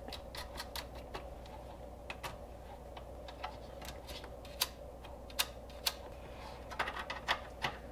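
Small metal lock washers and 7mm nuts clicking and tapping against the fan motor bracket of a climate control unit as they are fitted by hand; light, irregular ticks with a small cluster near the end.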